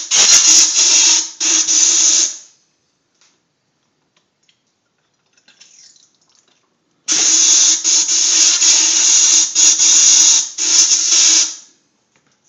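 Compressed air hissing through a rifle barrel's bore to clean it out, with a steady low tone under the hiss. It comes in two loud blasts: one stops about two seconds in, and a second, about four and a half seconds long, starts about seven seconds in.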